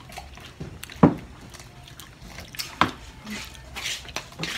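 Table sounds at a meal: a sharp knock about a second in as a plastic cup is set down on the table, then a second knock about two seconds later, over faint low background noise.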